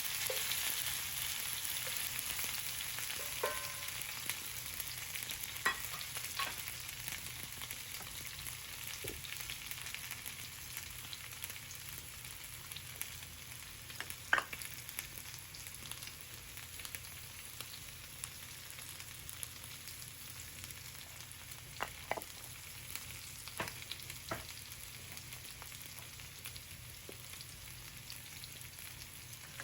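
Food frying in a pan of rendered chicken fat: a steady sizzle that slowly dies down, with scattered sharp clicks and pops.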